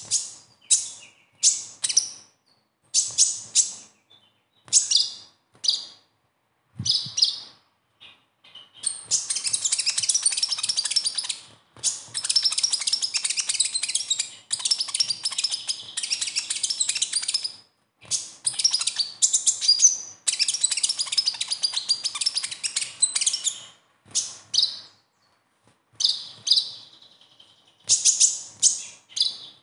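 Male Van Hasselt's sunbird (kolibri ninja) giving its besetan, a high-pitched twittering call. For the first eight seconds it comes in short separate bursts, then runs on in long stretches of rapid chattering lasting several seconds each, and breaks up into short bursts again near the end.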